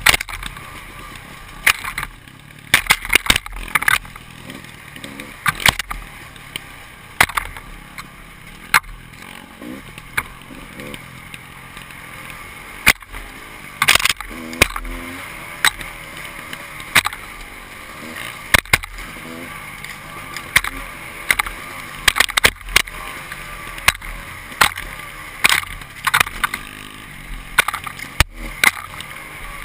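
Off-road motorcycle riding a rough enduro trail: frequent sharp knocks and rattles from the bike over the ground, with the engine's pitch rising and falling faintly underneath.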